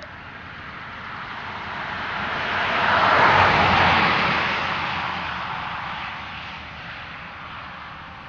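A car passing by, its tyre and road noise swelling to a peak about three seconds in and then fading away.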